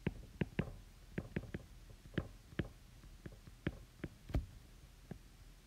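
Stylus tip tapping and clicking on a tablet's glass screen while handwriting: a dozen or so short, sharp taps at irregular intervals.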